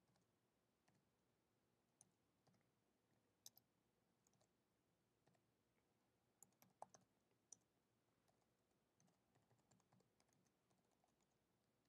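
Faint computer keyboard typing: scattered, irregular key clicks, with a quick flurry of louder clicks about halfway through.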